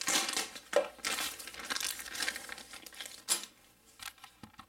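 Clear plastic packaging bag crinkling and rustling in uneven bursts as a blowgun is pulled out of it, dying down near the end.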